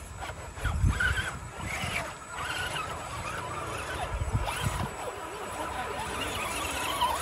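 Scale RC crawler's electric motor and gearbox whining as it drives through shallow river water, the pitch rising and falling in short squeaky glides with the throttle. Low rumbles come about a second in and again around four and a half seconds.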